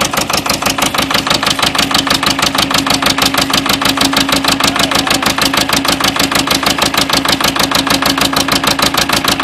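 Zetor Crystal 8045 tractor's four-cylinder diesel idling steadily with an even, rapid pulse, about seven beats a second. The engine is still cold and smoking just after a hard cold start with a broken block heater.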